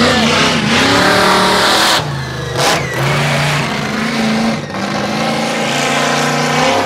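Monster truck engine running hard and revving, its pitch rising and falling, with a brief sharp sound about two and a half seconds in.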